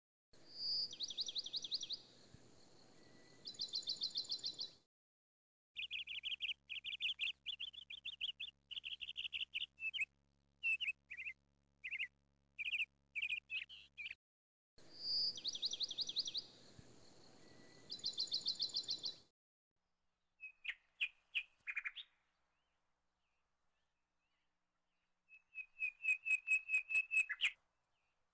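Birdsong: bursts of rapid high chirps and trills separated by short silences. It is a recorded birdsong track, and one passage is heard twice.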